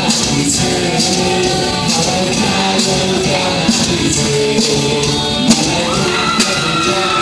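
A man singing into a microphone over amplified backing music with a steady beat of about two strokes a second. A long held tone enters about six seconds in.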